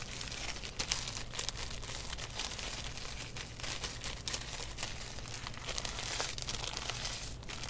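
Small bag of potato chips squeezed and crushed by hand: the bag crinkling and the chips crunching into crumbs in a steady run of crackles.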